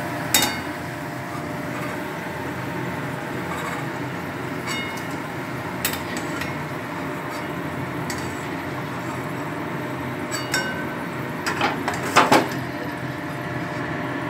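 Oil sizzling steadily in a metal wok (kadai) as shreds of grated potato fry, the bubbling mostly died down, the sign that the shreds are fried crisp. A metal slotted spoon clinks and knocks against the wok several times, most sharply in a quick cluster near the end, as the fried shreds are lifted out.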